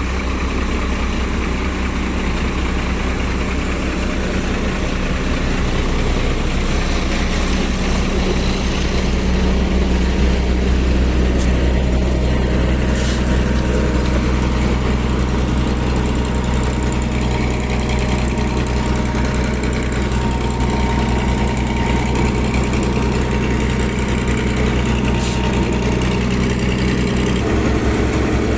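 Engine of heavy road-building machinery running steadily at a low, even pitch, with a slight change in its note near the end.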